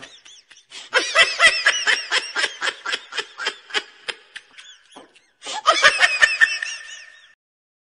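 High-pitched laughter in quick repeated pulses, in two runs with a short break about five seconds in.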